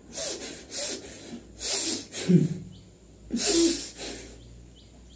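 A man in a possession trance breathing out forcefully in four loud hissing, snorting bursts, some with a voiced sound under the breath.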